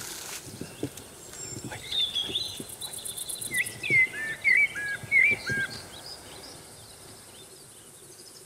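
Birds calling: a series of short chirps that bend up and down in pitch, loudest between about two and six seconds in, over faint outdoor background noise.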